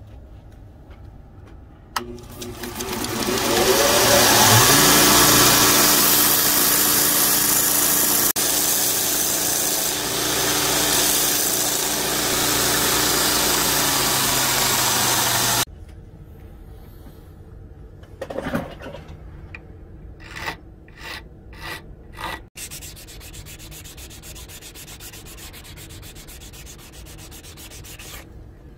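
A belt grinder switched on, its motor winding up to speed and then running steadily while the belt sands a pinned pair of wooden knife-handle scales; the sound cuts off suddenly a little past halfway. After that, quieter hand-sanding of the wooden handle: a few separate strokes, then quick, even rubbing strokes.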